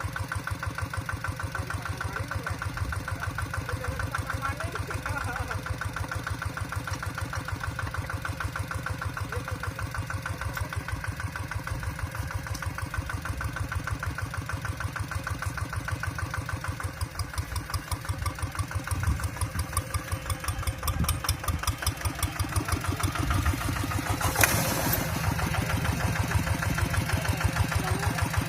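Kubota RD85 DI single-cylinder diesel engine of a Quick TL800 hand tractor running with a steady rapid chug, getting louder in the second half. A brief sharp clank sounds near the end.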